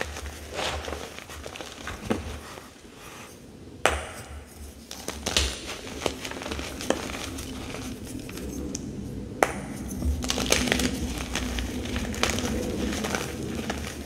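Reformed gym chalk crunching as hands squeeze and crumble pressed chalk blocks in loose chalk powder. The crunching is uneven, with two sharp cracks, one about four seconds in and one about nine seconds in.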